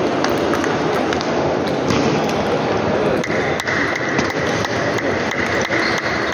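Table tennis rally: the ball clicking sharply off the bats and the table again and again, over the steady murmur of a busy sports hall. A steady high tone joins about three seconds in.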